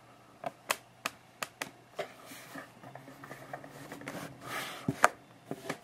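Handling noise from a phone held in the hand: a string of sharp clicks, about six in the first two seconds, then soft rustling, with one louder click about five seconds in and a few more near the end.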